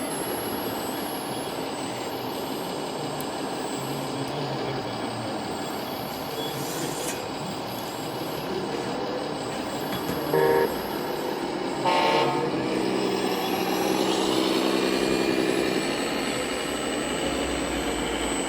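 Two short horn toots about ten and twelve seconds in over a steady machine hum, followed by an engine sound that rises and falls in pitch, typical of an RC model truck's electronic sound module.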